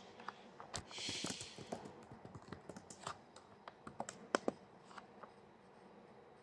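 Light, irregular taps and clicks of fingers on a handheld device for about five seconds, with a short hiss about a second in.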